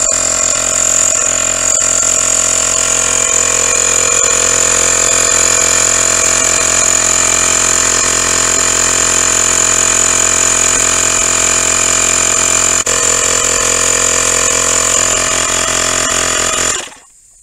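The 12-volt electric compressor of a tyre puncture repair kit running steadily with a high whine as it inflates a punctured tyre through its sealant bottle. It is switched off suddenly near the end once the tyre reaches the specified pressure.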